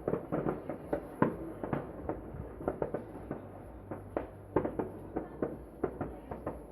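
Many fireworks going off around a town at once: irregular sharp bangs and pops, several a second, some near and loud, over a continuous distant rumble of further explosions.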